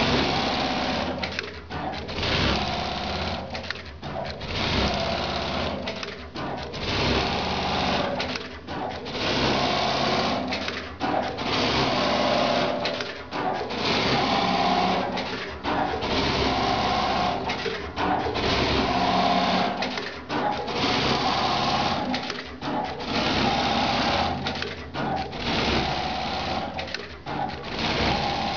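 Brother BAS-342GXL computer-controlled pattern sewing machine stitching at speed in repeated runs of about one to two seconds, with a brief stop between runs.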